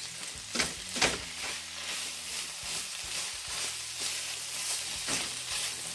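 Beef stir-fry in stir-fry sauce sizzling in a hot pan as it is mixed, with a few sharp clacks of the utensil against the pan, one about half a second in, one about a second in and one near the end.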